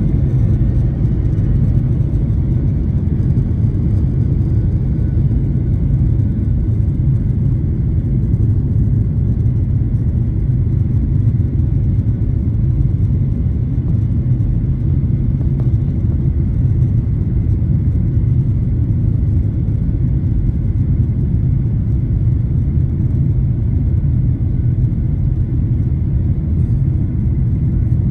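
Steady low rumble inside a jet airliner's cabin beside the wing as it taxis on the ground: engines at low taxi power and the rolling of the airframe, with no spool-up for take-off.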